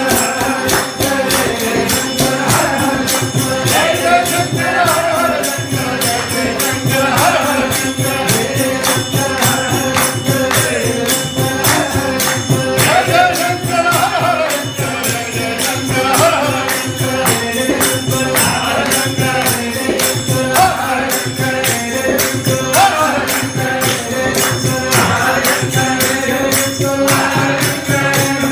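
Devotional bhajan music: a group of voices chanting over a steady drone, with hand percussion keeping a fast, even beat.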